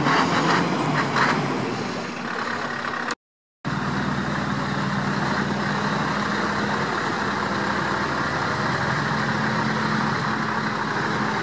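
Scania 5-series V8 truck engine running steadily at low revs. A short dropout about three seconds in separates it from a louder, noisier stretch with a few sharp sounds at the start.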